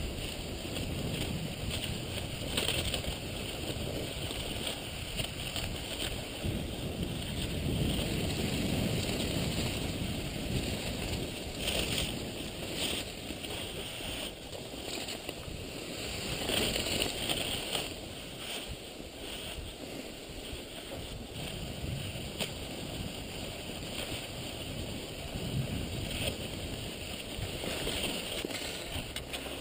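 Cross-country skis swishing and scraping along groomed classic tracks, with a low wind rumble on the microphone.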